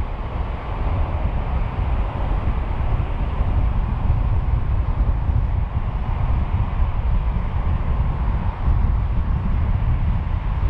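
Steady rumble of a car driving along a city road: tyre and road noise, even throughout with no sudden sounds.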